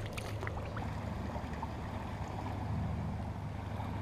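Steady seashore ambience: a constant low rumble under an even hiss, with a few faint ticks about half a second in.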